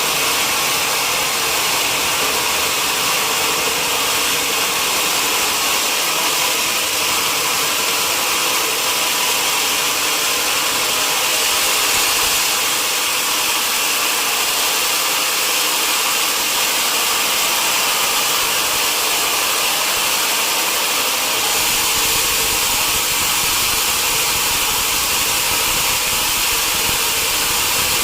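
Sawmill machinery running steadily with a loud, hissing, high-pitched noise; about three quarters of the way through, the sound changes and a lower rumble comes in.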